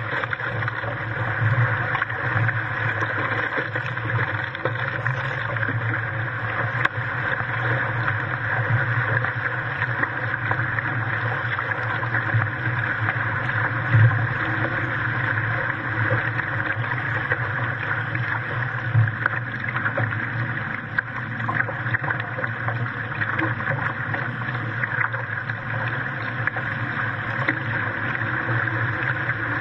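Water rushing and spraying past a Hobie Cat catamaran's hull as it sails fast, mixed with wind noise on the camera's microphone. There are a few brief louder thumps from waves and spray, the loudest about halfway through.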